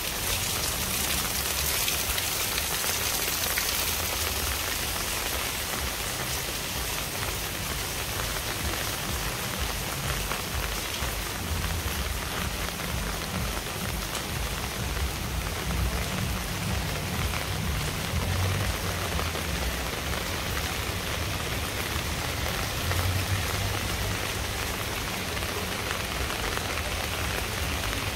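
Steady rain falling and splashing on hard surfaces, a dense, even hiss, with a low, uneven rumble underneath.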